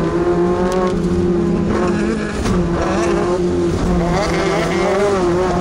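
Class 2 off-road race truck's engine running hard at fairly steady high revs, the pitch dipping slightly about two seconds in and rising again near the end, over a steady noise of tyres and rough ground.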